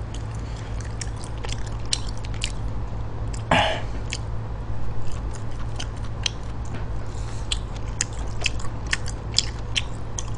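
Chewing of stir-fried pork intestines (gopchang bokkeum), full of short wet mouth clicks and smacks, over a steady low hum. About three and a half seconds in there is one short, louder rush of noise.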